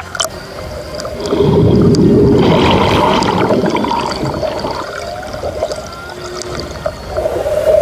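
Underwater rush of water and bubbling, loudest from about a second and a half in, with short gliding humpback whale calls from about four seconds in.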